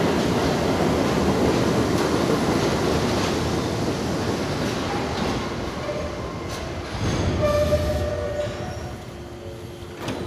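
Budd-built R32 subway train pulling into the station: a loud rumble and clatter of wheels on rail, then a high squealing tone from about five seconds in as it slows to a stop, after which the sound dies down.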